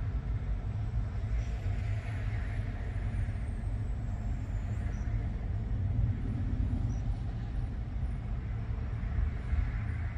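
Steady low rumble of diesel semi-truck engines idling and moving around a truck stop.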